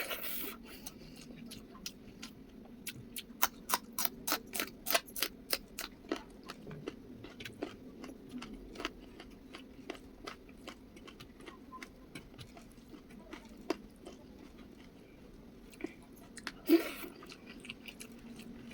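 Close-miked eating sounds: a person chewing with wet mouth smacks and crunches, a quick run of them a few seconds in, then sparser, with one louder knock near the end.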